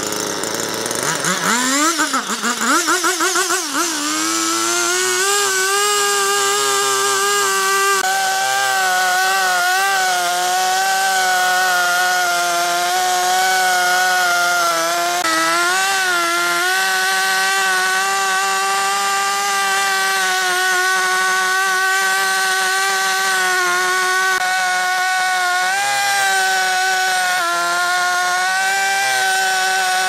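Husqvarna 353 two-stroke chainsaw running: the pitch swings up and down a few times as the throttle is worked over the first few seconds, then holds steady at high revs with only small dips while the bar cuts into a tree stump.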